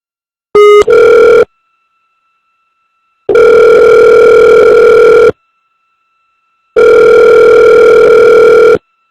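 Telephone ringing heard down the line as a call is placed: a short, clipped beep about half a second in, then two long ring tones of about two seconds each with a pause between.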